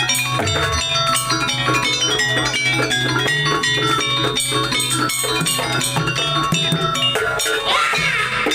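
Instrumental music with a steady bass and many quick plucked or struck pitched notes, with a rising sweep near the end.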